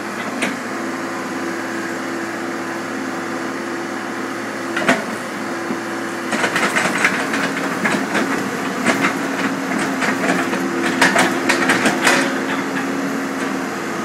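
Tracked excavator's diesel engine running steadily while its bucket works earthbags, shaking out the earth. A sharp knock comes about five seconds in, then a long stretch of rapid clattering and rattling of the bucket and falling earth until near the end.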